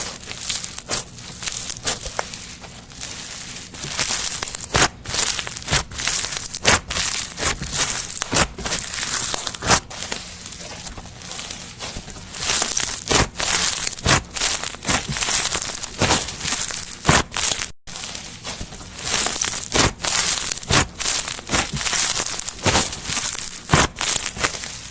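Slime being worked by hand, giving crisp crackling and popping clicks at an uneven pace.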